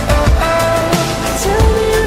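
A pop song playing, with a steady drum beat under held melody notes.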